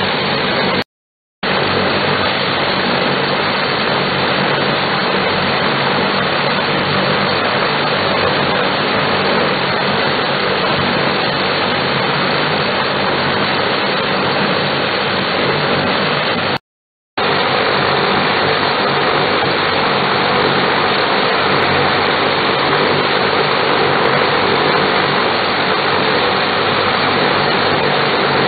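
Lockheed L-188 Electra's Allison 501 turboprop engines running steadily during a ground run-up, with propellers spinning. The sound drops out briefly twice, near the start and a little past halfway.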